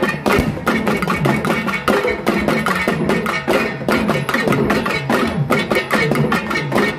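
Fast, steady folk drumming on frame drums struck with sticks, the strokes coming several times a second.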